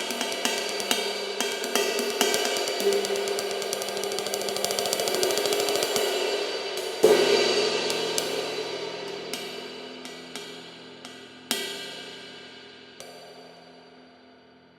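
A 23-inch flat bell lathed ride cymbal played with a stick: a stream of strokes that speeds into a fast run and builds up, then a hard accent about halfway through. A few more spaced strikes follow while the cymbal's wash rings on and slowly dies away.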